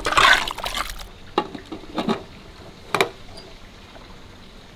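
Water pouring and splashing into an aluminium pressure cooker of mutton for about a second, stopping abruptly. Three short knocks follow, about a second apart.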